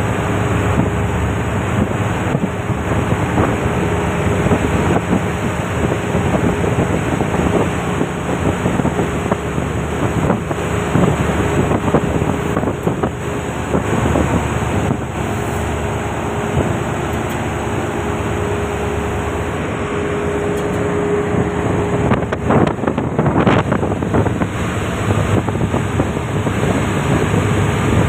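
Passenger ferry under way: the steady drone of the ship's engines, with wind buffeting the microphone and the rush of water along the hull.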